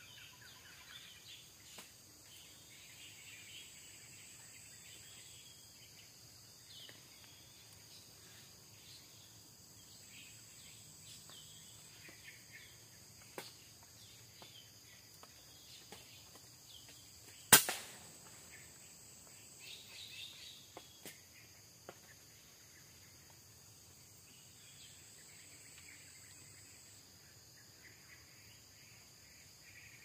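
A single sharp shot from an air rifle about halfway through, over a steady high buzz of forest insects and scattered small bird chirps.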